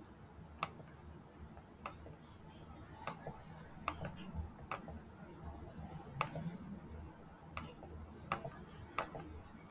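Faint, irregularly spaced clicks of a computer mouse and keyboard, about ten in all.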